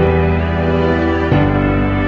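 Slow, calm background music of sustained chords, shifting to a new chord just over a second in.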